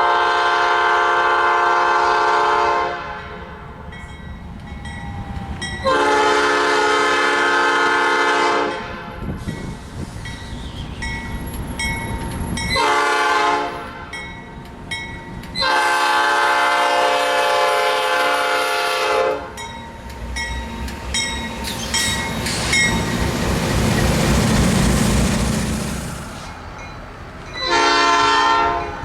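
Nathan P5 five-chime locomotive air horn (new-cast bells) sounding a chord in the grade-crossing pattern: two long blasts, a short one, then a long one. The noise of the passing train follows, and another horn blast starts near the end.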